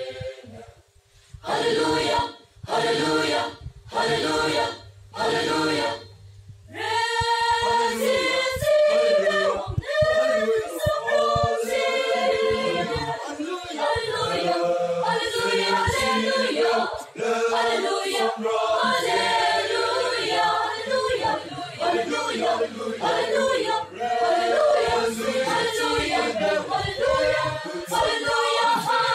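Mixed choir of men and women singing, first in a few short separate phrases with pauses between them, then continuously from about seven seconds in.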